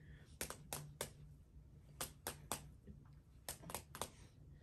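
Fists slapping down onto open palms in three quick rounds of three slaps each: hands pumping for rock, paper, scissors.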